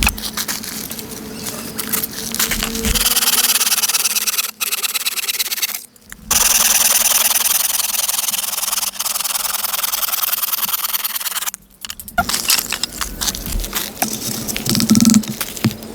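Rasping wood-working noise, steady and scratchy, broken by several abrupt cuts where it stops and restarts.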